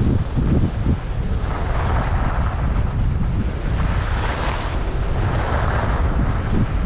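Wind buffeting the microphone of a camera on a moving skier, a continuous low rumble, with the hiss of skis on groomed snow swelling twice as the skier turns.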